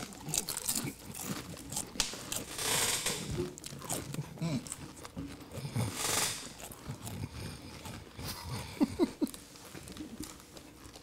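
Several people biting into and crunching hard, brittle chips at the same time, irregular overlapping crunches with chewing in between.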